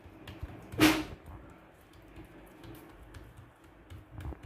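Hands patting and pressing ragi roti dough flat on an oiled plastic sheet: faint soft pats and rustles of the sheet, with one brief, loud clink about a second in.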